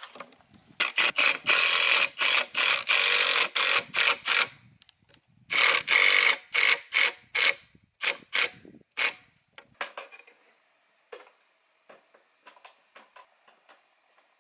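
Cordless impact driver driving screws into pine boards: two runs of short, loud bursts of rapid hammering. Near the end come fainter scattered clicks as small hinge screws are turned in with a hand screwdriver.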